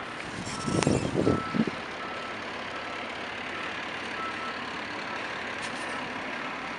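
Street traffic noise with a vehicle's reversing beeper sounding faintly, a high beep repeating about twice a second. A short burst of louder low rumbling and knocking comes about a second in.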